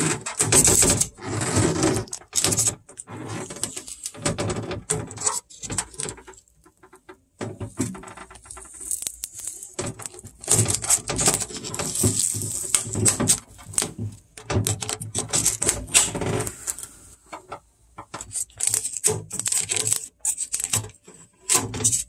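Clear plastic refrigerator crisper drawer and trays being handled: irregular clicks, knocks and clatters of hard plastic, with rustling as packing tape and foam are dealt with.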